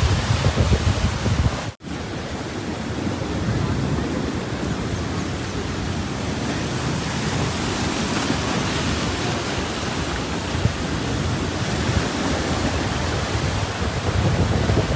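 Steady rush of sea surf on a beach. Wind buffets the microphone for the first two seconds, the sound drops out for an instant, and then an even, hissing wash of waves goes on.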